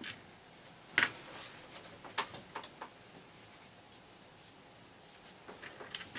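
Light clicks and taps of small parts of an electric drill being handled and worked loose by hand, a few separate knocks about a second apart, with quiet gaps between.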